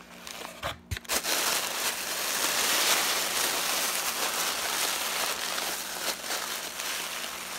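Tissue paper crinkling and rustling as a hand presses and pulls at it inside a cardboard box, starting about a second in after a couple of small knocks.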